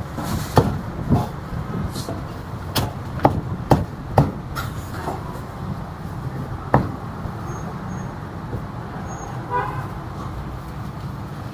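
Knife chopping roast pork on a chopping block: about seven sharp, unevenly spaced chops in the first seven seconds, over steady street traffic. A short horn toot sounds about nine and a half seconds in.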